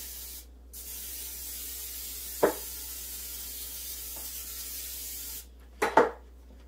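Aerosol cooking spray hissing steadily as a baking pan is greased. It breaks off briefly near the start, then stops about five seconds in. A sharp knock comes about halfway through, and two more come near the end.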